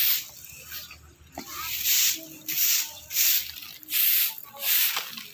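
Broom sweeping over paving blocks in brisk, even strokes of bristles scraping the pavement, about three strokes every two seconds.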